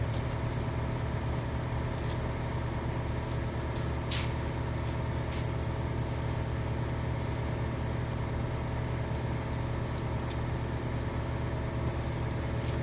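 A machine running with a steady, even hum, with a faint click about four seconds in.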